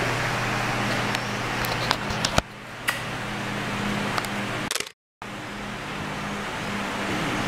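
Steady machine hum, like a fan or motor running, with a low held tone. It is broken by a few sharp clicks about two seconds in and cuts out completely for a moment about five seconds in.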